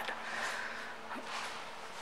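Quiet room tone: a faint steady hiss with a low hum.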